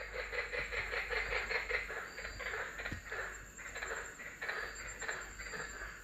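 Several white-lipped tree frogs calling against each other in a chorus of rapid, repeated calls: males competing to attract a female.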